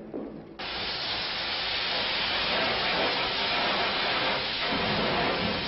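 A loud, steady hiss that starts abruptly about half a second in and holds without a rhythm or a pitch.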